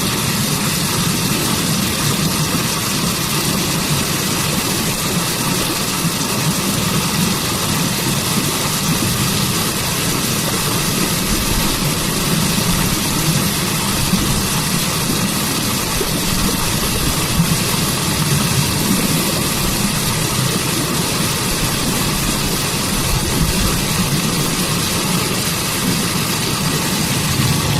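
Waterfall water rushing steadily, an even, unbroken hiss that fills the whole range from deep to very high.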